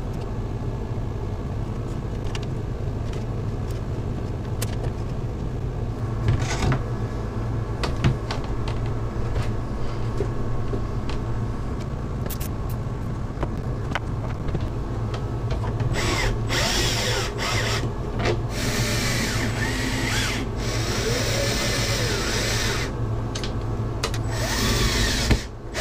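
Electrical cable being pulled by hand through a wiring harness, rubbing and scraping against it, over a steady mechanical hum. The scraping and rustling grow louder for the last third or so.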